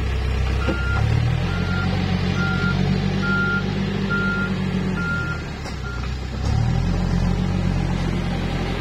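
Case 580 backhoe loader's diesel engine running under load, its reversing alarm beeping seven times at a steady pace. The engine revs up about a second in and again about two-thirds of the way through.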